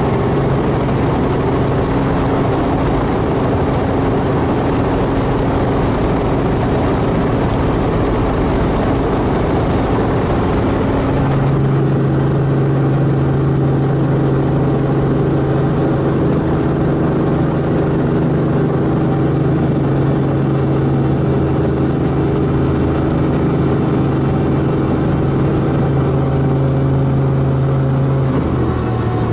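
Robinson R44 helicopter heard from inside the cabin: the steady drone of its piston engine and rotors over a hiss. About eleven seconds in the hiss drops and the drone changes to a steadier hum, and near the end its pitch steps down.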